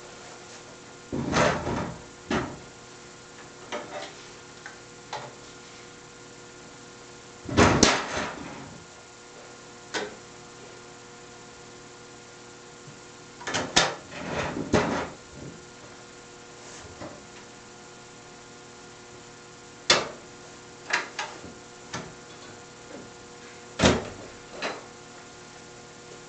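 Steel compartment doors and fittings of a wall-mounted computer workstation being opened, closed and latched: a series of sharp clicks, knocks and clatters in bursts a few seconds apart, over a steady hum.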